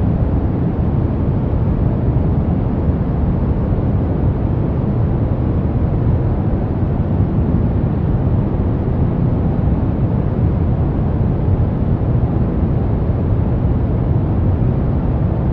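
Steady brown noise: a constant, even hiss-rumble, strongest in the low end and soft in the highs, with no changes or events.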